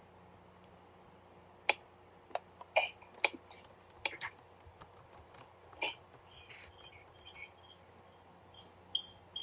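Typing on a computer keyboard: irregular, separate keystrokes with uneven gaps between them.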